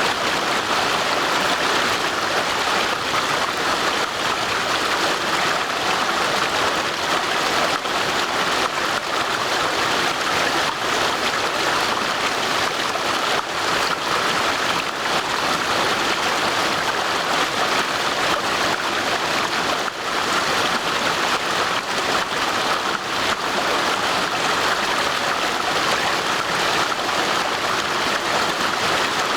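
Flowing stream water, a steady, even rush with no breaks.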